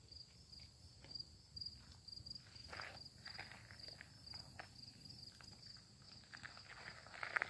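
Footsteps crunching on a gravel road, irregular and growing louder near the end, over the steady pulsing chirp of insects.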